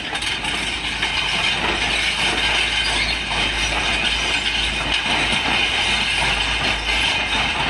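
Hydraulic rock breaker on a Volvo EC210 excavator working quarry rock, a steady loud rattling clatter over the excavator's diesel engine.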